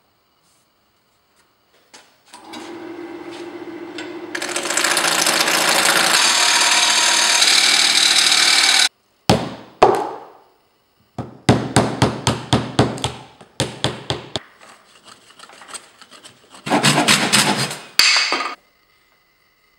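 A small wood lathe starts up and spins, then a turning tool cuts the spinning wooden block with a loud, steady scraping hiss that stops abruptly. After that a gouge is driven into a pine block in runs of sharp wooden knocks, about four a second.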